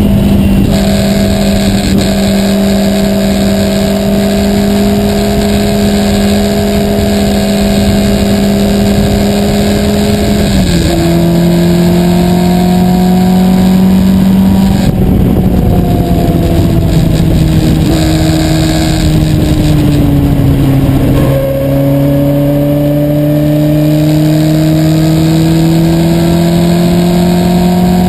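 Lola Mk1 sports-racer's engine heard from its open cockpit, running at a steady pitch, then dropping in pitch about ten seconds in and a few more times after that, and rising slowly through the last few seconds, with wind rushing over the cockpit.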